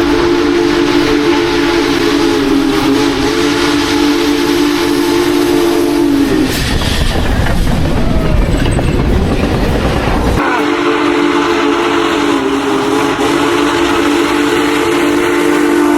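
Union Pacific Big Boy steam locomotive's chime whistle blowing two long blasts of several seconds each, the pitch sagging as each cuts off. Between the blasts comes the low rumble and rail noise of the train running.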